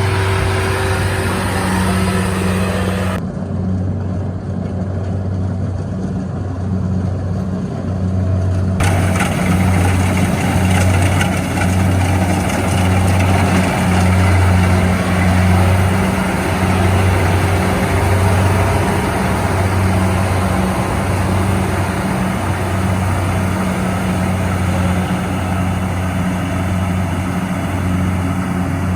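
Engine of a rice harvesting machine running steadily under load, a continuous low hum that pulses slightly.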